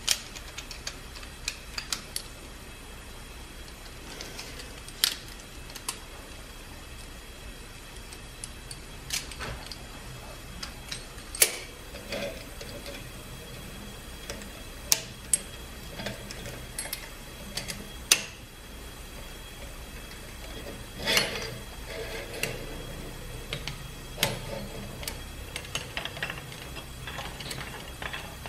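Scattered metallic clicks and clinks of a cylinder hone being handled and fitted into an engine cylinder bore, with its drive rod tapped against the work, over a faint steady hum.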